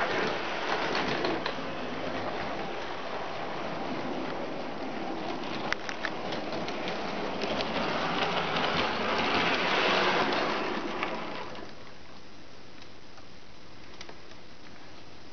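Model electric train, a maroon Sydney 'red rattler' set, running on its track with a steady rumbling clatter and scattered clicks of the wheels over the rails. It is loudest about ten seconds in and falls to a low steady hum about two seconds later.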